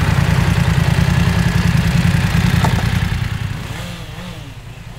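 Two naked motorcycles, a Honda CB650R with a 649 cc four-cylinder and a BMW F 900 R with an 895 cc two-cylinder, idling side by side, then pulling away about three and a half seconds in, their engine sound fading as they ride off.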